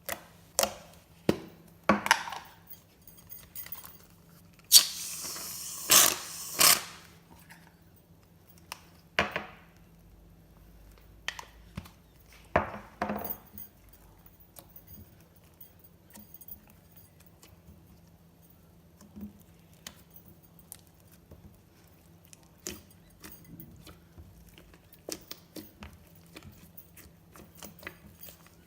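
Glossy slime being handled: a series of sticky clicks and pops, with a louder noisy stretch of about two seconds some five seconds in, and only faint small clicks in the later part.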